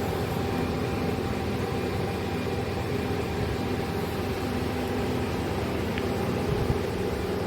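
Electric arc welding: a steady hiss from the arc over the constant hum of the welding machine, running without a break.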